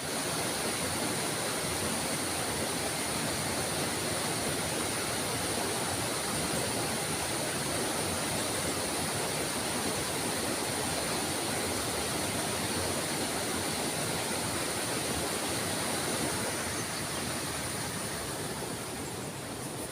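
River water rushing and flowing steadily, an even wash of noise with a steady high hiss over it, easing slightly in the last few seconds.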